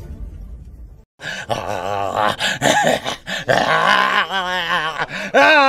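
Man voicing zombie groans and moans, several drawn-out calls in a row with a wavering pitch, beginning about a second in after a low rumble cuts off.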